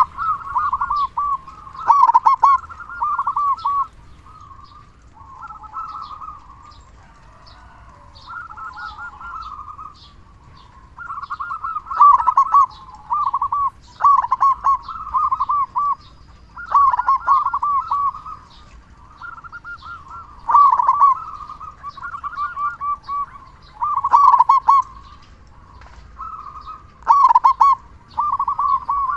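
Zebra dove (perkutut) in full voice, cooing over and over. Each phrase is a quick run of rolling, stuttered coos, and a new phrase starts every few seconds.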